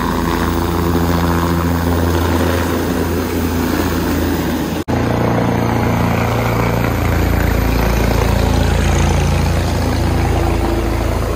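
Helicopter rotor and turbine engine running loud and steady close by as the helicopter lifts off and flies away. The sound breaks off for an instant about five seconds in, then carries on just as loud.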